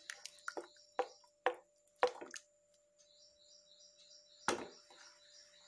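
Wooden spoon stirring a thick curd gravy in a nonstick pan: a quick run of wet slaps and light knocks about every half second, then one louder knock about four and a half seconds in.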